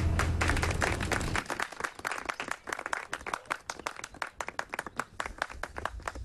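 A small group of people clapping, irregular individual claps throughout, with string music ending about a second in.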